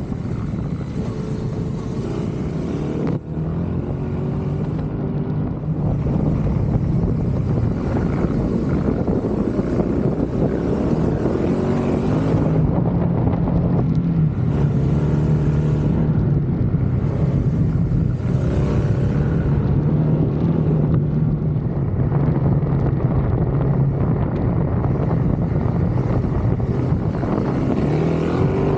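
Yamaha Ténéré 700's parallel-twin engine running hard on a gravel trail, its pitch rising and falling as the throttle is opened and closed through the corners, with wind rushing over the microphone. The engine note drops briefly about three seconds in.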